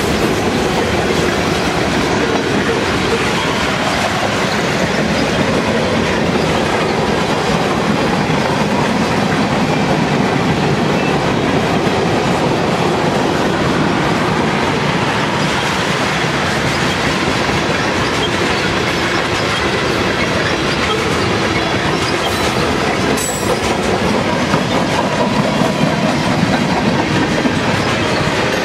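Freight cars rolling past at speed: a loud, steady rumble of steel wheels on rail with clickety-clack over the rail joints. A brief clank about three-quarters of the way through.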